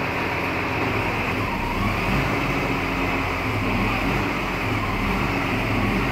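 Large forklift's engine running steadily, a constant low drone.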